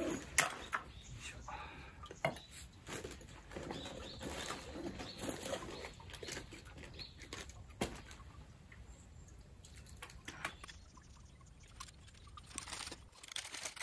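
Handling noise from setting up a microphone stand: scattered clicks and knocks of the stand and fittings, with rustling of clothing and gear.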